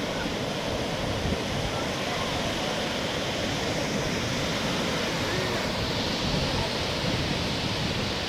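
Sea surf washing steadily on a beach, with faint distant voices mixed in.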